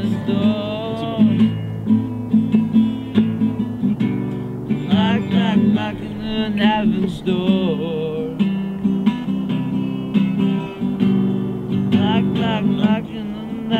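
Background music: strummed acoustic guitar under a wavering melodic line.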